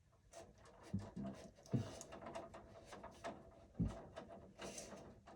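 Hands working with wires and cable-jacket pieces: scattered soft clicks, taps and rubbing, with a few sharper knocks about one, nearly two and four seconds in.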